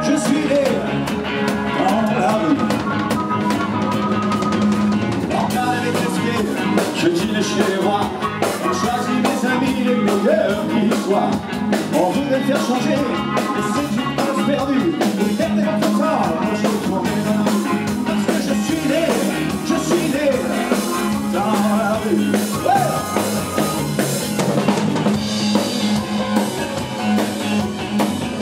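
Live rock band playing with a steady, busy drum kit beat.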